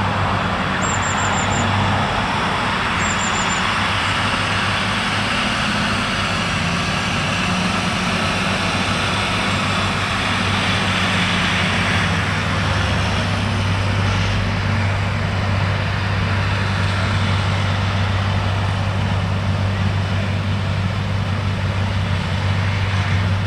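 Heavy farm machinery engines running steadily: a constant low engine hum under a broad, even machine noise that shifts slightly about halfway through.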